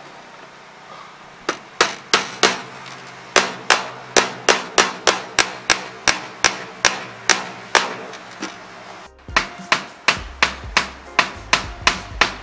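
Hammer driving nails through aluminum fascia: a long run of sharp, ringing strikes at about three a second, with a brief break about nine seconds in before the strikes resume.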